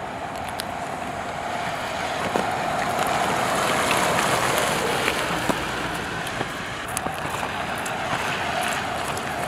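2017 Ram Heavy Duty pickup driving past on wet pavement: a steady tyre hiss that swells to its loudest as the truck passes about four seconds in, then fades as it pulls away.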